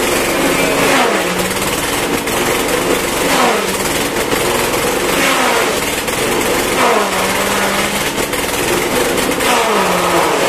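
BT5000 grass chopper driven by a small petrol engine running hard as bundles of odot grass are fed in, the engine pitch dipping about four times as each bundle is chopped, over the steady whir and shredding of the blades.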